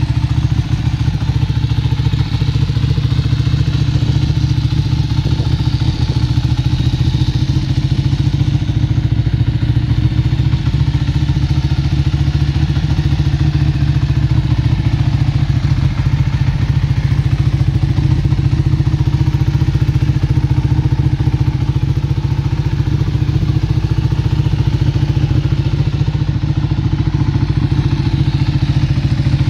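Ducati 1299 Panigale S's 1285 cc L-twin engine idling steadily through Akrapovic exhausts: a loud, low, rapid beat with no revving.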